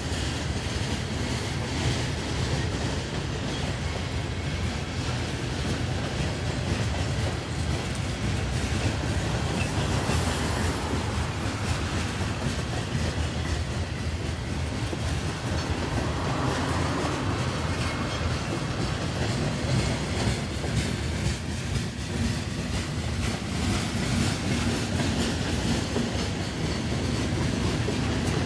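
Freight train of covered hopper cars rolling past: a steady rumble of steel wheels on the rails, with the repeated clickety-clack of wheel sets crossing rail joints.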